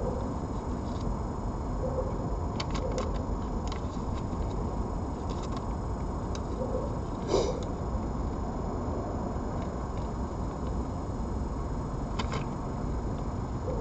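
Steady low background rumble with faint scattered clicks, and one louder knock about seven seconds in.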